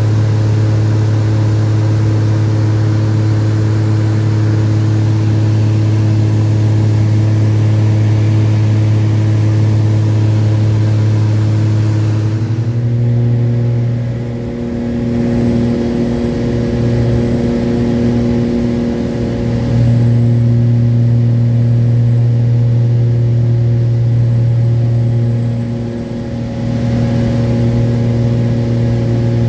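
Propeller aircraft's engine droning steadily in the cabin with a deep hum. The pitch shifts about halfway through, and the sound eases off briefly twice as the plane descends toward the airstrip.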